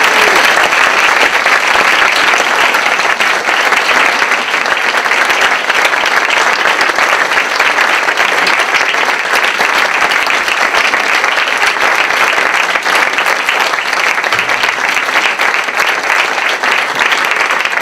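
Small audience applauding, a steady dense clapping that holds at an even level throughout.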